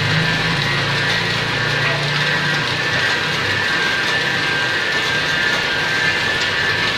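PVC shrink-film printing machine running steadily, its motor and rollers making a continuous high whir over a hiss, with a low hum that fades about two and a half seconds in.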